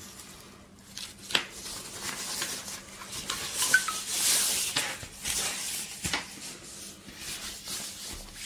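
Rustling of a thin nylon stuff sack as a rolled camping mattress is worked out of it, with two sharp clicks along the way.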